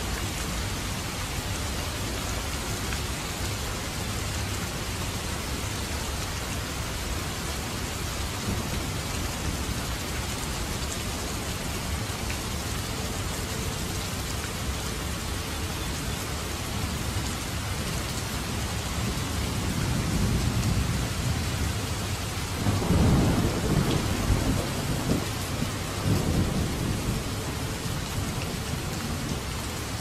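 Steady heavy rain falling on the ground. About two-thirds of the way through, a low rumble of thunder rolls in and lasts several seconds.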